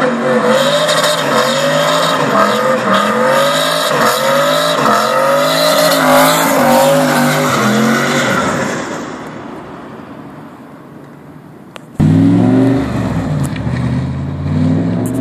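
Turbocharged BMW M60B40 V8 in a Volvo 745 held at high revs in a burnout, the revs wavering up and down as the rear tyres squeal and spin; the sound fades away after about eight seconds. Then, after an abrupt cut, the V8 runs loud and lower, revving as the car pulls away close by.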